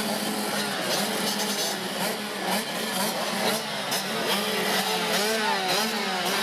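A pack of 85cc two-stroke motocross bikes running together, riders blipping their throttles so that several engine notes rise and fall over one another above a steady drone.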